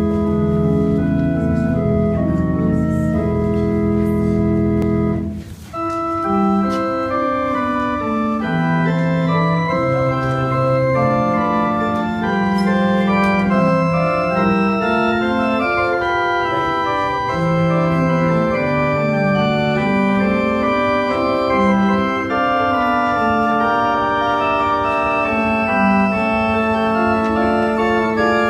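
Organ playing: a held chord with deep bass that breaks off about five seconds in, then a slow melody over sustained notes.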